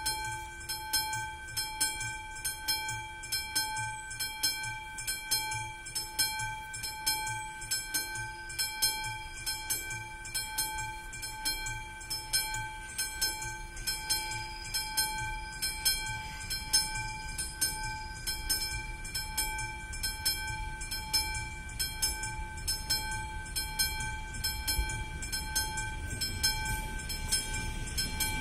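Railway level-crossing warning signal ringing, an even, repeating bell-like ding about one and a half times a second, while the crossing lights flash for an approaching train. A low rumble grows near the end as the train nears.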